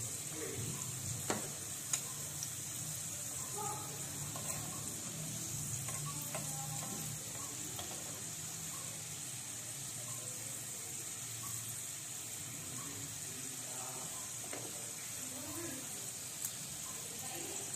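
Breaded chicken drumsticks deep-frying in hot oil in a karahi, a steady sizzle. Metal tongs click against the pan a few times as the pieces are turned, about a second and two seconds in and again near the end.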